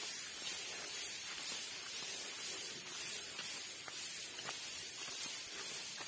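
Steady high-pitched hiss of outdoor ambience, with a few faint soft ticks.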